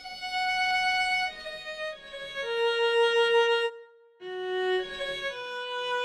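Sampled solo cello from UVI's Orchestral Suite, played as a virtual instrument: a slow phrase of held, bowed notes stepping downward, a short break just under four seconds in, then a few more held notes.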